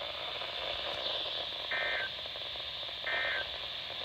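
Emergency Alert System SAME digital data bursts over a radio broadcast: two short warbling bursts of data tones, about a second and a half apart, over steady radio static. Their shortness fits the end-of-message signal that closes an alert.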